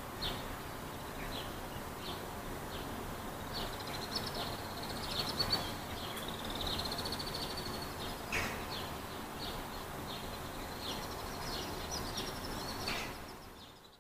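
Outdoor ambience of small birds chirping: short high down-slurred notes repeated every second or so, a rapid trill a little before the middle and one louder call about eight seconds in, over a steady background hum of distant noise. The sound fades out near the end.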